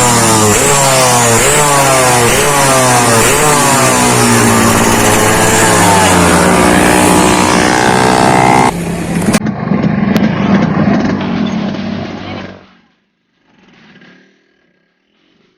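Yamaha RX-King two-stroke single-cylinder motorcycle engine revved through its hollowed-out muffler, blipped in quick rises and falls about every 0.7 s, then held at higher revs. The engine note is meant to be the crisp, raspy 'garing ngorok' exhaust sound. Past halfway the sound drops a little, then fades out about four-fifths in.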